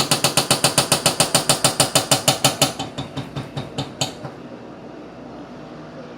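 Washing machine making an abnormal rapid knocking, about eight sharp strikes a second, that slows, fades and stops about four seconds in, over the steady hum of the running machine.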